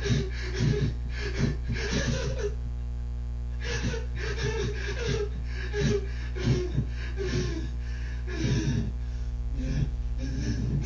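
Laughter in short breathy bursts, about two a second, pausing briefly about three seconds in and again near the end, over a steady low electrical hum.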